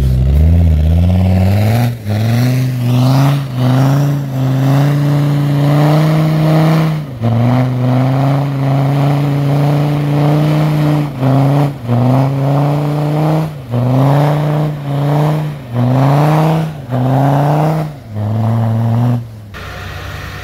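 Land Rover Discovery TD5's diesel engine revved hard in about a dozen bursts. Each burst rises quickly, is held, then drops off briefly, as its tyres spin and dig in deep snow on a climb.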